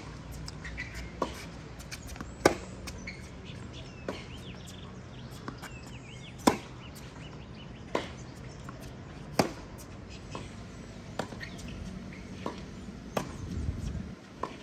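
Tennis ball hit back and forth in a rally: sharp pops of racket strings striking the ball every second or two, the loudest three from the near player, with softer knocks from the far end of the court in between.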